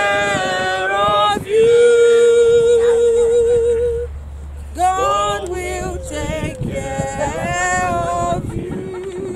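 A small group of mourners sings a hymn unaccompanied, a woman's voice leading with a man's voice alongside. About two seconds in, one long note is held with vibrato until about four seconds in.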